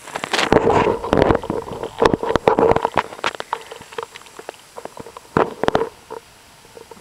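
House cat purring right at the microphone, with dense crackling rustles of fur rubbing close by as it rolls on the carpet. The rustling is thickest in the first three seconds and thins to scattered crackles by about six seconds in.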